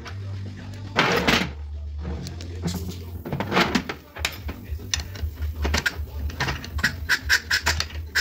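Workshop hand work on a truck gearbox's shift housing parts: irregular metal clicks and knocks. Near the end comes a quick run of short, high clicks.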